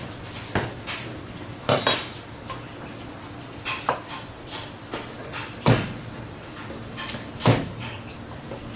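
A large knife cutting steaks from a Japanese Spanish mackerel: irregular sharp knocks as the blade chops through the backbone and strikes the cutting board, the two loudest in the second half.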